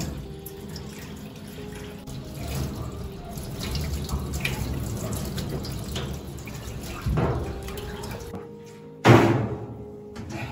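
Water from a shower hose running into a stainless-steel sink and over a wet dog's coat during a rinse. The water stops a little past eight seconds in, and about a second later there is one short, loud noise.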